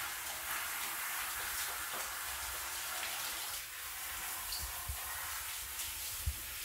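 Handheld shower head spraying water over a cat's wet fur and onto a tiled shower floor, a steady hiss with a few soft knocks.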